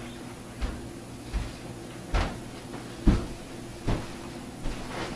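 Slow footsteps: six heavy thuds about 0.8 s apart as a person walks in.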